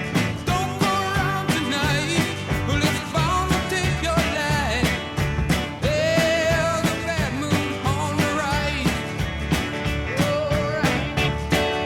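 Background music: a song with a steady beat and a sung melody.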